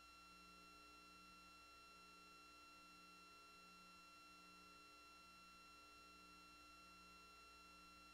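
Near silence: only a faint electronic hum with steady thin tones and a soft low pulsing, with no sound from the road scene.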